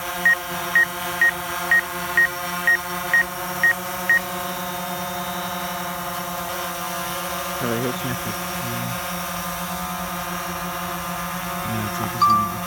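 Quadcopter drone propellers running with a steady multi-tone hum. Over the first four seconds or so, short high electronic beeps come about twice a second.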